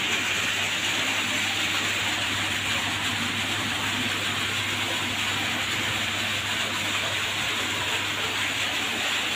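Steady rushing water noise from the aquarium tanks' water circulation, with a low steady hum underneath.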